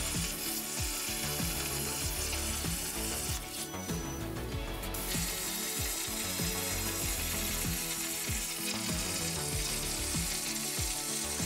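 Background music with a steady beat over the continuous hiss of a Razorcut 45CNC plasma torch on a Langmuir Crossfire Pro CNC table, cutting openings in 1/4-inch hot-rolled steel plate.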